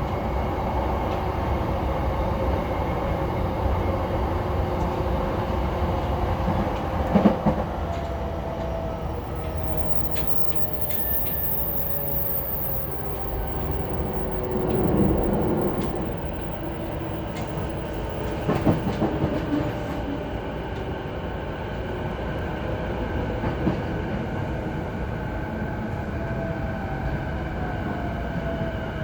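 On-board running sound of a JR East E233 series 0 electric commuter train: steady wheel and running noise with the electric motors' whine sliding slowly down in pitch as the train slows for the next station, and a few sharp clacks over rail joints.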